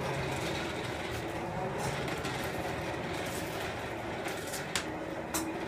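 Steady rushing noise of a blacksmith's forge, with a few faint, light metal clicks as the hot nail stock is handled.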